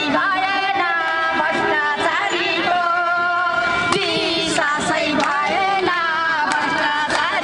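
A woman singing into a handheld microphone, with long held notes that bend slowly in pitch.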